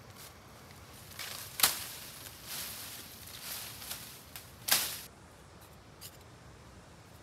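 Leaves and forest undergrowth rustling as someone pushes through the plants on foot. Two sharp louder snaps come about three seconds apart.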